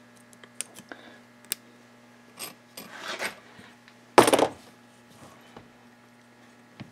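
Metal engine parts and tools being handled on a workbench: a few light clicks, some scraping, then a short, loud clatter about four seconds in.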